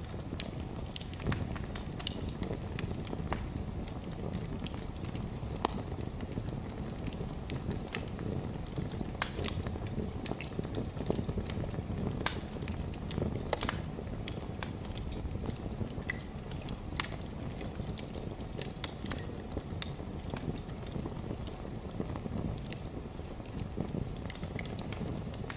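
Wood fire burning in a fireplace: a steady low rumble of flames with frequent sharp crackles and pops, one louder pop about halfway through.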